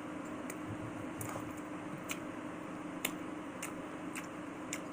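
Chewing with the mouth close to the microphone: a string of small sharp wet clicks and smacks, about seven in all, over a steady faint hum.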